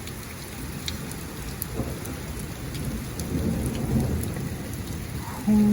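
Heavy rain pouring down in a thunderstorm, with a low rumble of thunder underneath.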